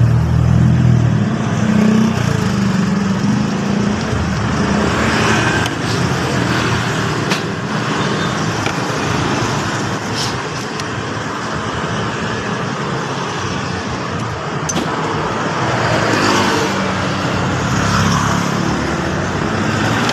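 A motor vehicle engine running steadily amid street traffic noise, with a few short clicks.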